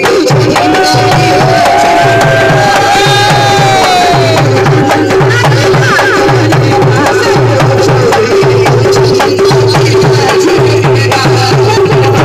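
Dholak barrel drums playing a steady folk beat under a held drone note, with a sung melody through a microphone early on.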